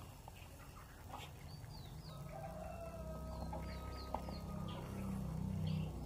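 Faint chicken clucking, growing slowly louder, with a few short high bird chirps.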